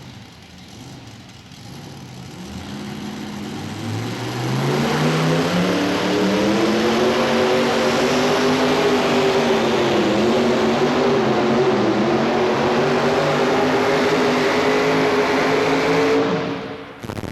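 Modified pulling tractor with two all-aluminum Rodeck V8 engines, which rise in pitch over a couple of seconds as the pull starts. They then run loud and steady at full power, and cut off sharply about a second before the end.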